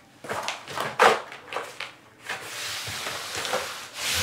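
Plastic uncoupling membrane (Schluter DITRA) scuffing and crinkling under hands and knees as it is handled on the floor: a few short scuffs, the loudest about a second in, then a longer steady scrape from about halfway through.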